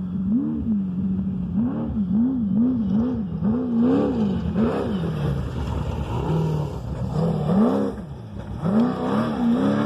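Desert racing vehicle's engine revving, its pitch rising and falling over and over, about twice a second, over a steady rumble.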